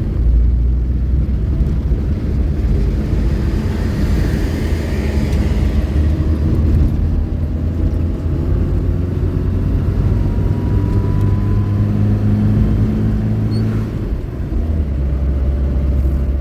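Car engine and road rumble while driving, a steady low drone whose engine note shifts in pitch a few times.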